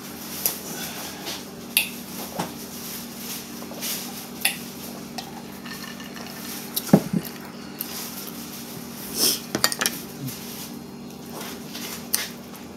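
Tableware clinking and knocking during a meal: a fork on a plate and a cup handled and set down, in scattered short clicks. The loudest knock comes about seven seconds in, and a cluster follows around nine to ten seconds, over a steady low hum.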